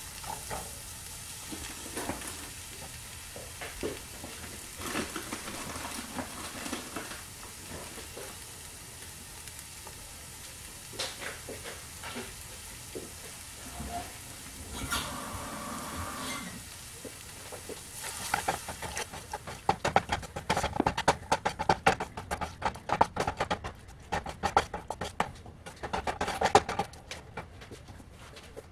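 Sliced onions and spices sizzling in oil in a nonstick frying pan, stirred and scraped with a wooden spatula. About two-thirds of the way through, the sizzle dies away as water goes in. From then on the stirring gives a fast run of loud wet scraping and slapping sounds.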